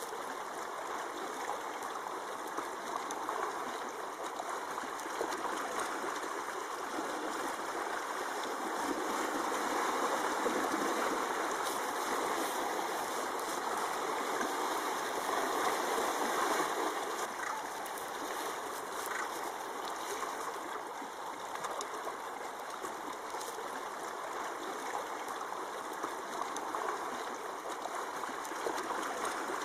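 Steady rushing noise from the installation's soundscape, swelling a little about a third of the way in and again just past the middle.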